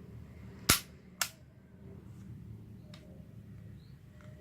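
Mechanism of a Tokyo Marui M92 spring airsoft pistol being worked by hand: two sharp clicks about half a second apart, the first the louder, then a faint click later on.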